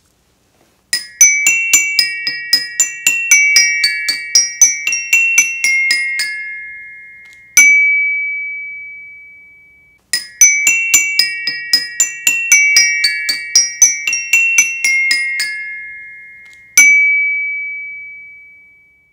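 Closing music: a quick, high-pitched, bell-like melody on mallet percussion, played twice. Each phrase ends on a single long note that rings out and fades.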